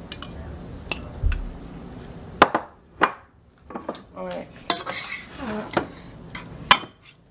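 Utensils clinking and scraping against a stainless steel saucepan and a ceramic bowl as cooked noodles are served out: a series of sharp separate clinks, the loudest about two and a half seconds in and near the end.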